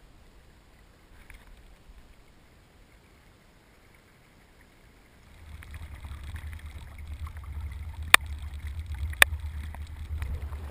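Inflatable boat getting under way on an electric trolling motor. After about five seconds of quiet, a low rumble of water and wind against the moving boat sets in and builds. Near the end come two sharp clicks about a second apart.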